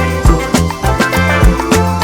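Background music with a steady, upbeat beat: regular drum hits over a bass line and pitched instruments.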